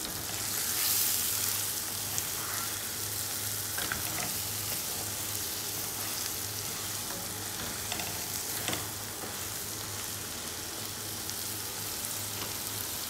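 Prawns in onion masala sizzling in a metal pot as they are stirred with a spatula, with a few light scrapes of the spatula against the pot about four and eight seconds in. A low steady hum runs underneath.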